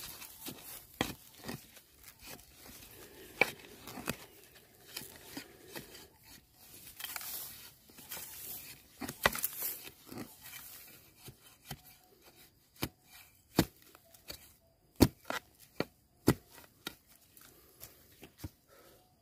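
Bamboo shoots being snapped and cut off: irregular sharp cracks and knocks with bouts of rustling, the knocks sparser and sharper in the second half.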